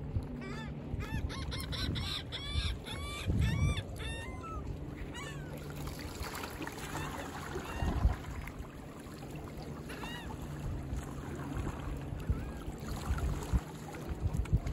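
Birds calling: a quick run of short, rising-and-falling calls over the first few seconds, then a few scattered calls later, over steady low wind and water noise. A single thump sounds about eight seconds in.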